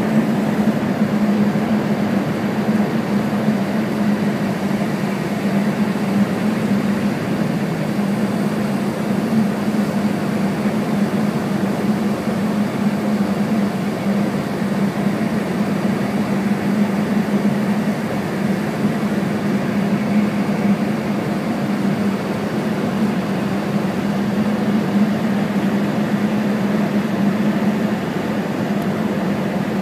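Steady running noise inside the passenger cabin of an E4 series double-decker Shinkansen travelling at speed: a constant rushing rumble with a steady low hum.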